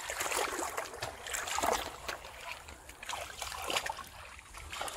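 Bare feet wading through shallow muddy pond water, with a splash and slosh at each step about once a second.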